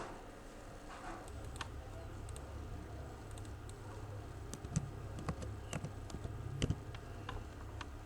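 Scattered clicks and taps of a computer keyboard and mouse, irregular, a few louder ones past the middle, over a low steady hum.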